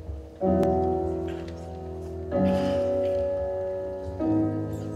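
Slow instrumental music: three chords, one about every two seconds, each held and left to fade.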